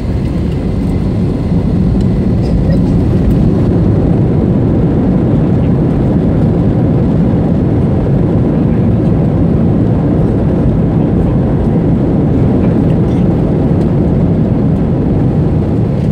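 Steady low rumble of an Airbus A321 rolling along the runway after touchdown, heard inside the passenger cabin: engine and rolling noise that grows a little louder over the first few seconds, then holds.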